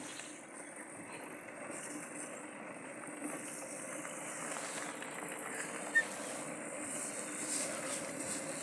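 A steady low engine hum over an outdoor noise haze, with a brief high chirp about six seconds in.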